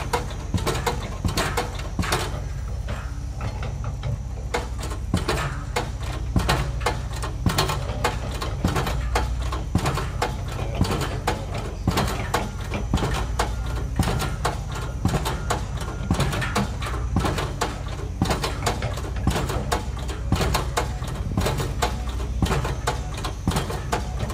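Construction machinery at a piling site: a steady low engine hum with many irregular sharp clicks and knocks throughout.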